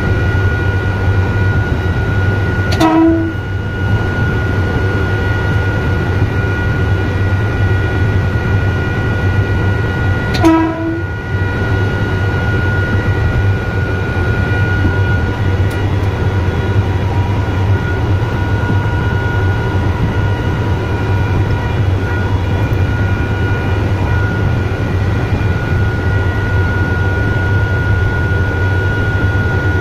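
Electric multiple-unit train running, heard from the motorman's cab: a steady rumble with a constant high whine. The horn sounds two short toots, about 3 seconds and about 10 seconds in.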